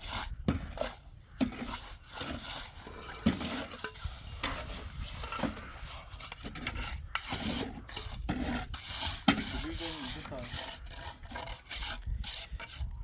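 Irregular rasping and scraping on wood, broken by scattered short knocks.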